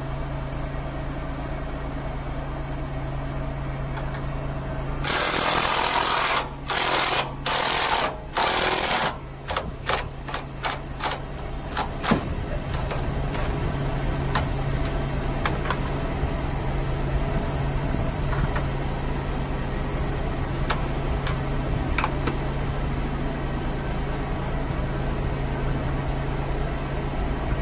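Cordless impact wrench hammering loose the U-bolt nuts on a semi truck's piggyback saddle mount: four bursts of about a second each starting some five seconds in, then a string of short taps. A steady low engine drone runs underneath.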